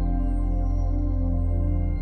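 Ambient new-age background music: soft, sustained synth pads over a deep low drone, with a few faint falling tones high up.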